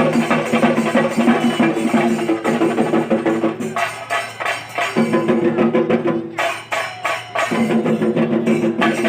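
Shingari melam ensemble: chenda drums beaten in fast, dense rolls with cymbals clashing. A steady pitched drone under the drumming drops out twice, at about four and about six and a half seconds in, leaving only the drums.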